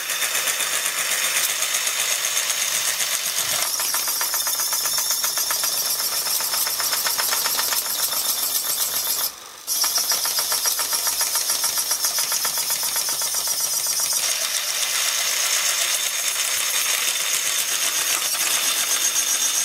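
Small electric motor driving the screw-spindle tipping ram of a 1:32 scale Krampe Halfpipe trailer model, running with a steady high buzzing whir as it raises the tipper body. It stops briefly about halfway through and then runs again as the body is lowered.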